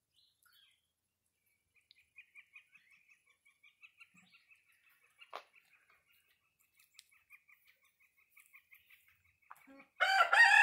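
Faint, rapid high chirping runs on for several seconds. Near the end comes a loud, drawn-out animal call that falls slightly in pitch.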